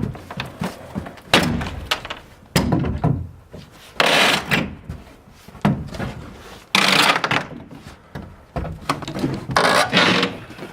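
Wooden boards and lumber being handled during a house teardown: irregular thunks and knocks of wood, with several longer scraping or sliding noises in between.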